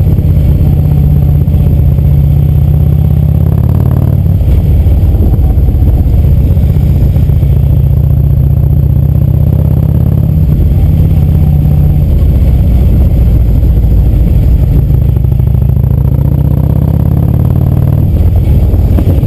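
Harley-Davidson touring motorcycle's V-twin engine running with a low, steady rumble while riding. Its pitch shifts a few times: about four seconds in, around ten seconds, and again near the end.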